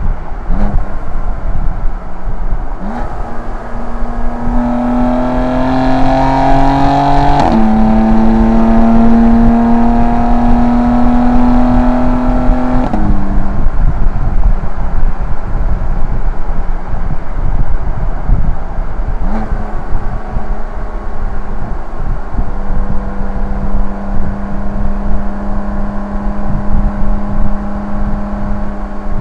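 BMW M2 Competition's twin-turbo straight-six through a Remus race rear-section exhaust under way: it pulls with rising pitch for about four seconds, drops sharply at an upshift, pulls again in the next gear, then eases off to a steady cruise.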